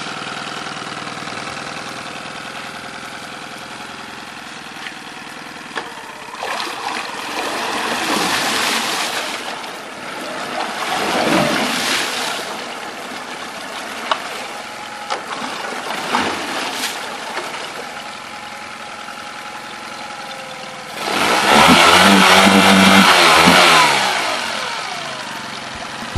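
1996 Mariner 9.9 hp four-stroke outboard running in a test barrel, its propeller churning the water, idling and then revved up and back down several times with the tiller throttle; the longest and loudest rev comes near the end.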